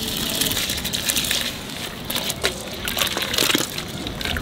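A large aluminium pot of green gram porridge boiling hard over a wood fire, bubbling and sloshing as rice is poured in from a steel cup and the cup is worked through the water. A few short clicks are heard.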